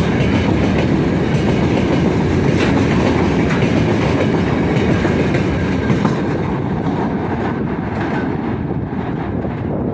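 Freight train of open gondola wagons rolling past, the wheels clattering over the rail joints in a steady rumble. The noise grows fainter in the last few seconds as the wagons move away.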